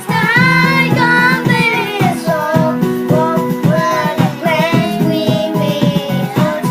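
A child singing a pop melody over an instrumental backing track with a steady beat.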